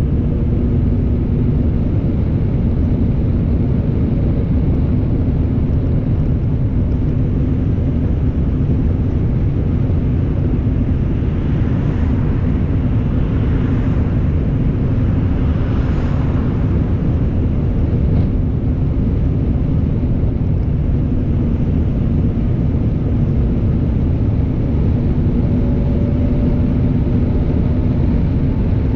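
Car being driven, a steady low rumble of road and engine noise with a constant hum. A few brief swells of hiss come about halfway through.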